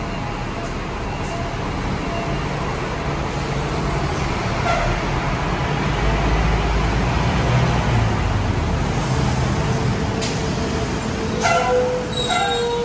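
Transjakarta bus engine rumbling as it comes in to the platform, over steady street traffic noise. The rumble swells in the middle. Near the end there are a few short sharp sounds and a steady tone starts.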